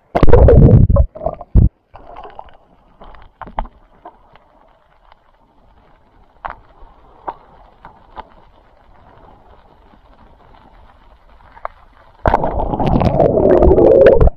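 Water splashing as a diver duck-dives from the surface, then a muffled underwater hush with scattered faint clicks. Near the end a loud rush of water noise starts as he swims back up.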